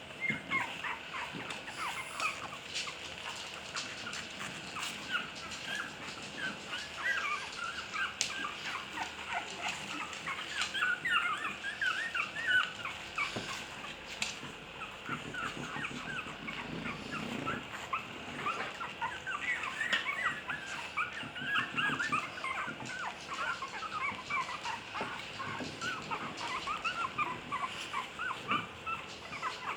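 A litter of 12-day-old puppies whimpering and squeaking, many short high-pitched cries overlapping without a break.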